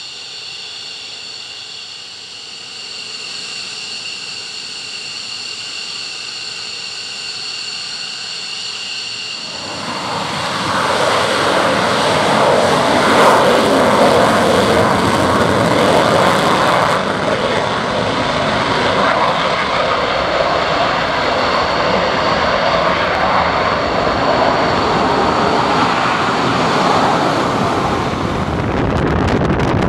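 F-15DJ Eagle's twin turbofan engines: a steady whine with several held high tones while taxiing, then about ten seconds in a much louder roar as the engines power up for the takeoff roll, held to the end.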